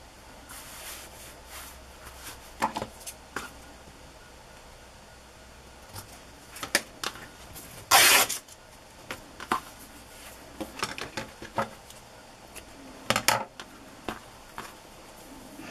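Handling noises of cloth and paper being moved and smoothed over a book cover on a cutting mat: scattered rustles and light knocks, the loudest a short rustle about eight seconds in and another about thirteen seconds in.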